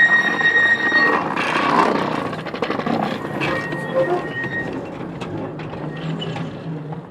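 A small 19-inch gauge passenger train rolling past. Its wheels give a high squeal in the first second, then comes a rumble with rapid clicks from the wheels on the rail joints, fading away near the end.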